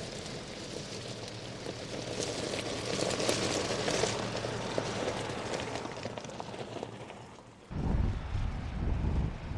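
Tyres crunching and crackling slowly over loose gravel, fading away about seven seconds in. Near the end a sudden low rumble starts.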